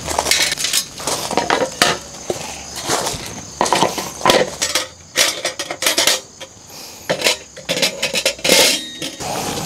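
Irregular knocks, clinks and clatters of hard objects being handled and set down.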